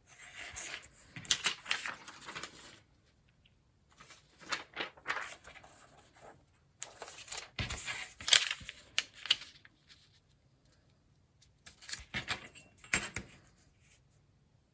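Paper being handled: rustling and crinkling in four bursts, with quiet gaps between them.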